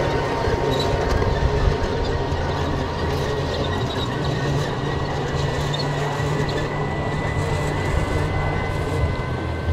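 Miniature ride-on train running along its track: a steady low hum, scattered clicks from the wheels and track, and a thin high whine that lasts through most of the run.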